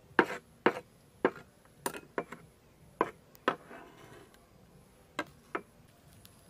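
Cleaver chopping garlic on a wooden board: about seven sharp knocks roughly half a second apart, then a short scrape as the minced garlic is gathered onto the blade, and two last knocks near the end.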